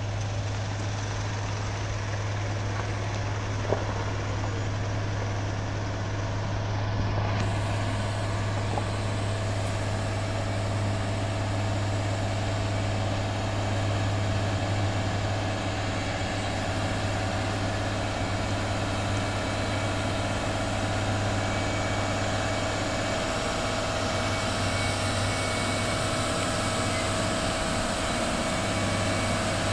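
A heavy diesel truck running with a steady low engine drone as it approaches slowly.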